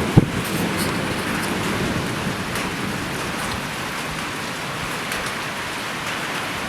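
Steady rain in a severe thunderstorm, with one short sharp thump just after the start.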